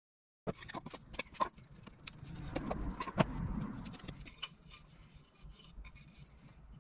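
Handling sounds of a wooden disc on an MDF router-table jig: scattered clicks and knocks, with double-sided woodworking tape being peeled off the disc and one sharp knock about three seconds in.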